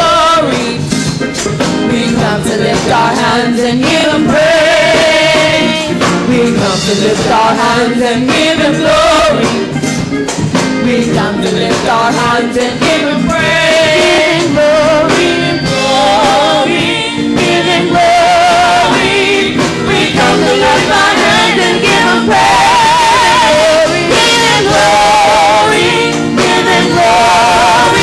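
Gospel praise team singing through microphones, lead and backing voices together with wavering held notes over instrumental accompaniment, loud and continuous.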